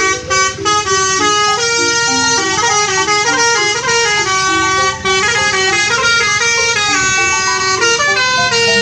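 Bus "telolet" horn: a bus's set of multi-note air horns playing a fast tune of stepping notes, often two or three sounding together, without a break.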